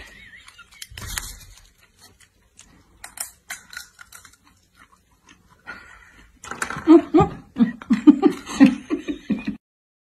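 A person laughing hard in short, rapid bursts for about three seconds, starting past the middle and stopping suddenly near the end. Before that, only faint scattered clicks and rustles.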